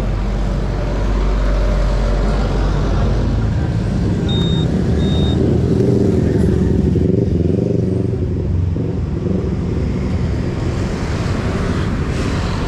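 Motor vehicle engines running at the roadside, a steady low rumble that wavers in pitch. Two short high beeps sound about four and five seconds in.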